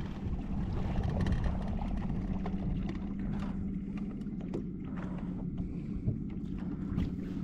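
A boat motor running steadily with a low hum as the boat moves off, with a few light clicks and knocks over it.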